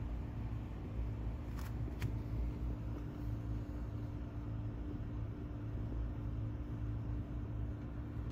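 Steady low mechanical hum with a faint background hiss, and two faint clicks about a second and a half and two seconds in.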